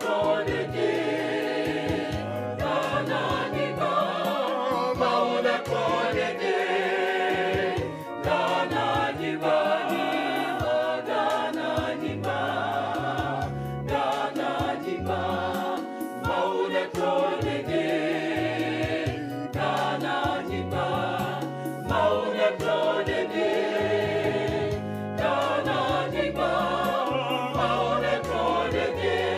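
Background music: choral singing over a moving bass line.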